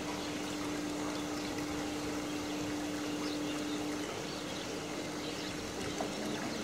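Water trickling and lapping steadily in a pool, with a steady low hum underneath.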